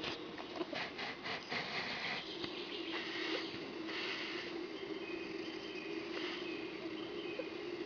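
Badgers rustling and scuffling in forest leaf litter, a run of quick scrapes and clicks in the first two seconds, then scattered rustles. A steady low hum lies under it all.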